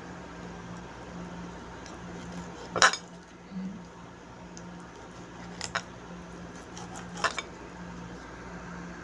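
Kitchen knife knocking and clinking against a ceramic plate while raw chicken breast is cut into strips: three sharp clinks, the loudest about three seconds in, with quiet cutting between them.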